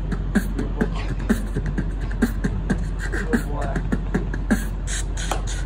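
A young man beatboxing with his hand cupped over his mouth, laying down a steady beat of kick- and snare-like mouth sounds at about two hits a second.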